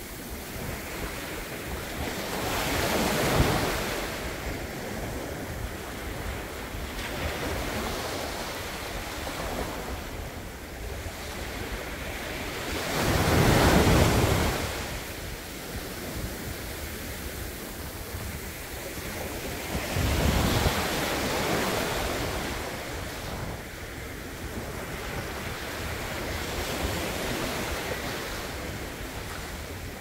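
Small surf breaking and washing up over a sandy beach, rising and falling in about five surges several seconds apart, the loudest about halfway through.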